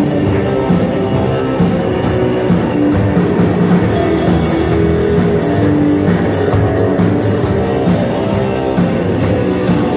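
A rock band playing live: guitar over a drum kit, loud and steady.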